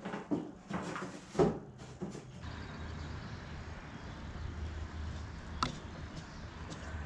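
Several knocks and clatters of objects being handled on a wooden shelf. About two and a half seconds in, this gives way to a steady low outdoor rumble, with one sharp click near the middle.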